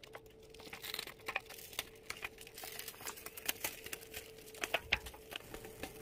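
Irregular crackling and crinkling clicks as hot caramelized sugar is poured onto a thin aluminium foil plate, with a faint steady hum underneath.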